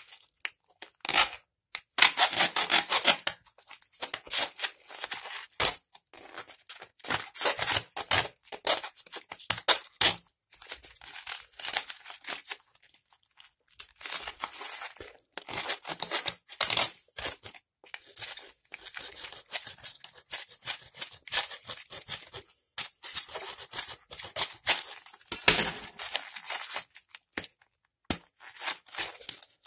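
Foil and plastic wrapping of an old lithium-ion battery crinkling and tearing as it is peeled apart by hand, in irregular bursts with short pauses.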